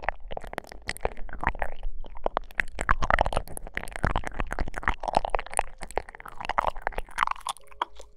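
Close-up ASMR mouth sounds into a KU100 binaural dummy-head microphone: a rapid, irregular run of wet sucking, licking and lip-smacking clicks as lips work on a clear pink stick.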